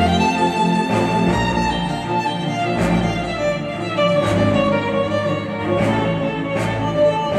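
Instrumental music with bowed strings over a bass line and a percussive hit about every second and a half, played back through KEF Q350 bookshelf speakers driven by a NAD C316BEE V2 integrated amplifier.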